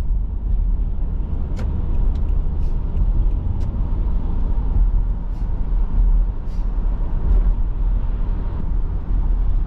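Car cabin noise while driving at speed: a steady low rumble of engine and tyres on the road, with a few faint, irregular ticks.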